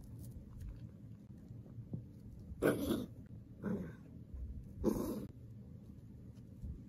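Dachshund giving three short barks about a second apart, the middle one quieter.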